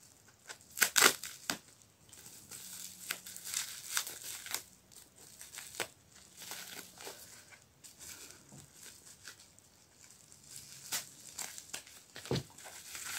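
Bubble wrap and packing tape crinkling and rustling in short, irregular bursts as a wrapped stone is cut open with scissors and unwrapped.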